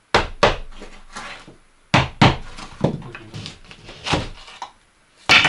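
Sharp knocks on a wooden plank door, about seven of them, some coming in pairs about a third of a second apart, the loudest near the end.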